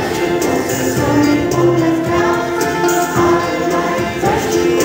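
Children's song playing: a group of voices singing a bouncy melody together over instrumental backing.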